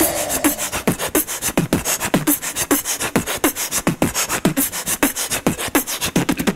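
Background music: a hip-hop beat with quick, evenly spaced percussion hits and short falling bass notes.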